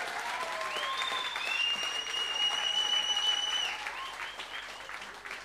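Audience applauding and cheering, with a long, high, steady whistle starting about one and a half seconds in; the applause dies down near the end.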